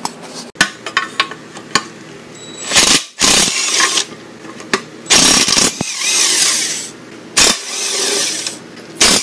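Cordless impact driver hammering in several short bursts as it backs out the bell housing bolts on a Porsche 928 torque tube. A few light clicks come before the first burst.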